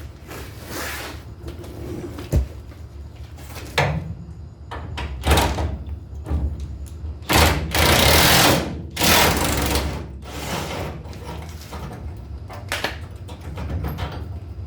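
Impact wrench fired in a series of short bursts, roughly half a second to a second each, with the longest and loudest burst near the middle.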